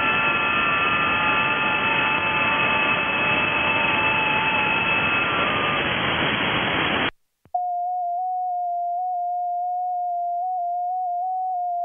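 Shortwave receiver audio from an IC-7100 on the 30 m band: band hiss with several faint, steady FT8 data tones, cutting off suddenly about seven seconds in. After a brief gap comes the station's own FT8 transmit tone near 700 Hz, one clean tone stepping slightly up and down in pitch as it sends a call to 7O73T.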